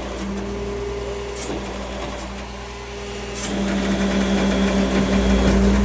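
Military truck's diesel engine running steadily as the winch pulls the wire rope in a shackle pull test. It gets louder and heavier about three and a half seconds in, as the load builds.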